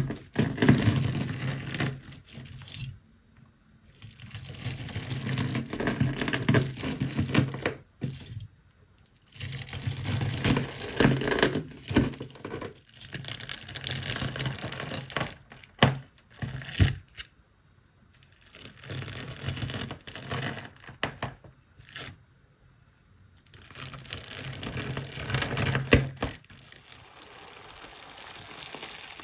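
Crunchy stone slime squeezed and pressed by hand: dense crackling and popping in stretches of a few seconds, broken by short pauses.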